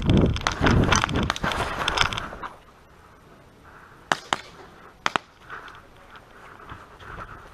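Player running on grass: heavy footfalls, gear rustle and wind on the microphone. These stop about two and a half seconds in. Then come four sharp cracks, one pair about a second after the running stops and a quicker pair about a second later.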